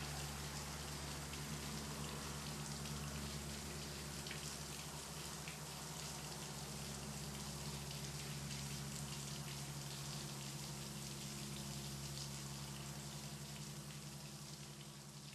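Steady pattering, crackling rush of water, with a low steady hum underneath, fading out near the end.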